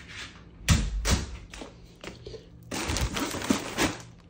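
A plastic poly mailer bag being handled: two thumps about a second in, then a longer crinkling rustle of the plastic near the end.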